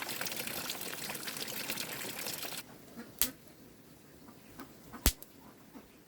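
Water running or pouring steadily, cutting off abruptly about two and a half seconds in. After it come two sharp knocks, the second the louder, over a quiet background.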